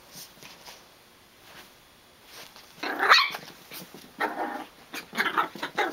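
Chihuahua puppy barking in play: a loud, pitch-bending yip about halfway through, then a quick run of shorter barks near the end.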